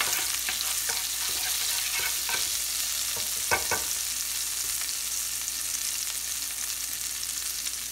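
Cumin seeds and chopped green chilies sizzling steadily in hot butter in a non-stick pan. A wooden spoon stirs and knocks against the pan a few times in the first half, the loudest knock about three and a half seconds in, then only the sizzle goes on.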